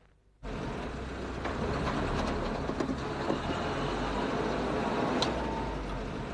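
City road traffic: a steady wash of cars and trucks driving past on a multi-lane road, with a low rumble, starting abruptly about half a second in.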